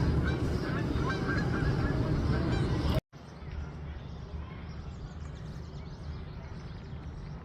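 Many short honking bird calls, one after another, over a steady low rumble; about three seconds in the sound cuts off abruptly and gives way to quieter steady background noise.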